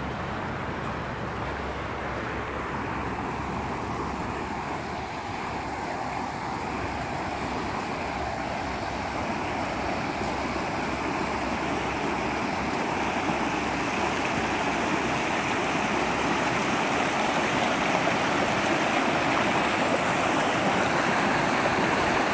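Muddy floodwater rushing and churning across a yard: a steady sound of fast-flowing water that grows gradually louder.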